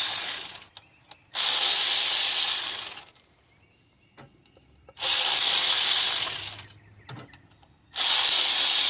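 Power ratchet running in four bursts of a second and a half or more each, with short pauses between, backing out 13 mm bolts. Each burst is a steady rushing whirr, with small clicks in the pauses.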